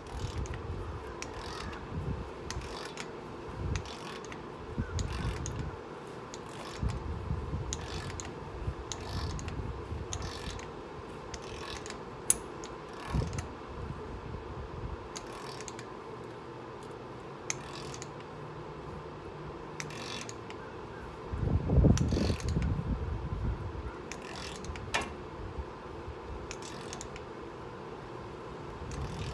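Torque wrench ratcheting on the front hub axle nut of a 2006 Ford F-150, a string of irregular metallic clicks from the ratchet pawl, with one heavier low thump about two-thirds of the way through.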